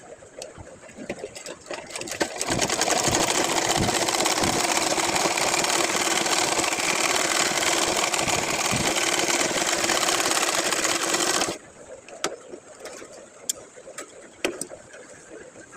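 Sewing machine stitching at speed: a fast, even run of needle strokes with a steady hum, starting a couple of seconds in and stopping suddenly after about nine seconds. Scattered light clicks come before and after it.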